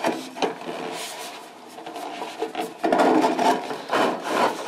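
Aluminum gutter sections scraping and rubbing as they are worked together by hand at a lapped seam, with small knocks and a louder stretch of scraping about three seconds in.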